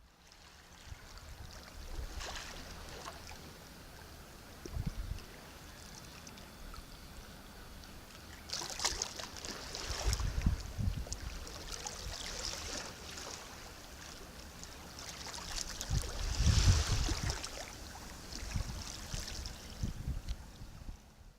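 Sea waves washing onto the shore: a steady hiss of surf that swells into two bigger waves breaking, one around the middle and a louder one near the end.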